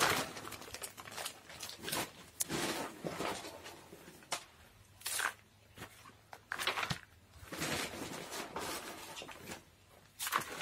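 Plastic bag of bark orchid potting mix rustling while the chunky bark mix is poured and scooped by hand in a plastic basin, in irregular bursts with short pauses between them.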